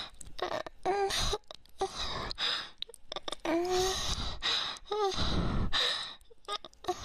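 A person breathing hard in repeated gasps and sighs, a few of them voiced as short moans.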